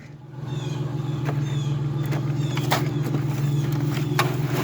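Truck engine running steadily with a low hum, growing louder over the first second, with a few faint clicks.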